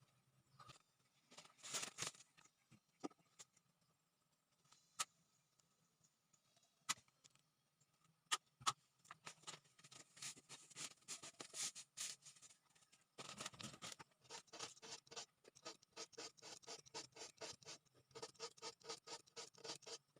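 Faint scraping strokes: a few scattered sharp clicks, then from about two-thirds of the way in a quick, regular run of rasping strokes, several a second.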